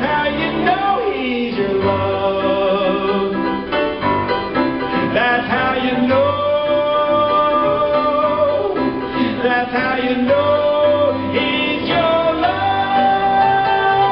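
A man singing live to his own piano accompaniment, with long held notes, heard over an arena sound system.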